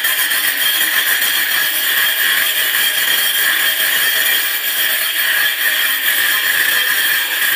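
Handheld angle grinder with its disc grinding along the edge of a granite slab, running steadily under load: a high whine over a grinding hiss.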